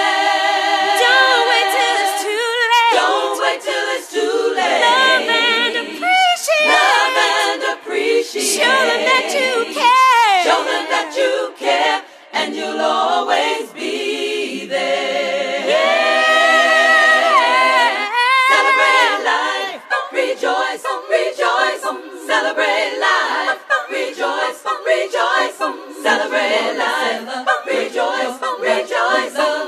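A cappella vocal group singing in close harmony, held chords with vibrato and sliding melodic lines, no instruments.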